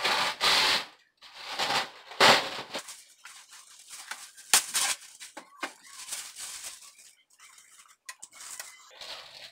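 Plastic cling wrap being pulled off its roll in a few loud tearing rasps, then crinkling with light scattered crackles as it is stretched over a glass mixing bowl.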